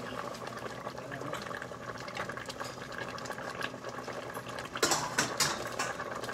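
Coconut-milk stew of bamboo shoots bubbling steadily in a stainless-steel pot on the stove, with a brief louder sound about five seconds in.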